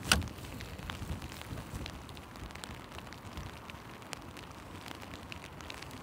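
A sharp knock about a tenth of a second in, then scattered light ticks over a steady hiss.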